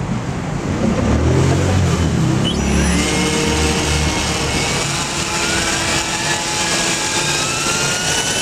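Shuttle electric RC helicopter spooling up on the ground. The rotor's low whirr builds over the first couple of seconds, then a motor and gear whine rises in pitch and settles into a steady high whine.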